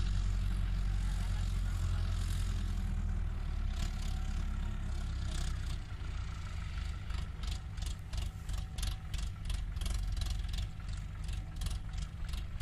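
Diesel engines of a backhoe loader and a tractor running with a steady low drone, joined about halfway through by a rhythmic clatter of roughly three beats a second.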